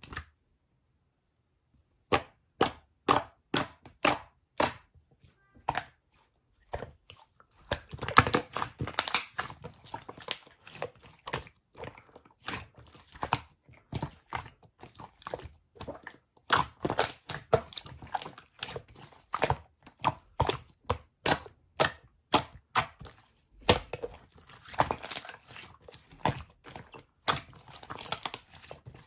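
Slime being pressed and played with by hand, giving sharp pops and clicks. They start about two seconds in at roughly two a second, then turn into a denser crackling.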